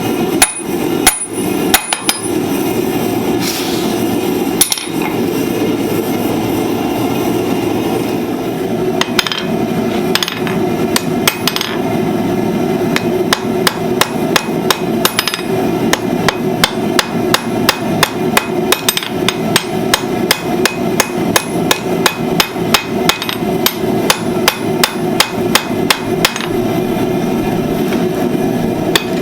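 Blacksmith's hammer striking hot steel on an anvil while forging tongs: a few spaced blows, then from about a third of the way in a steady run of quick blows, roughly two to three a second, over a steady hum.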